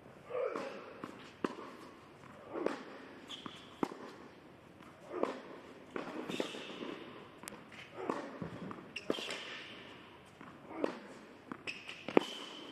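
Tennis rally on an indoor hard court: rackets striking the ball back and forth about every second or so, with ball bounces and the players' footsteps between the hits.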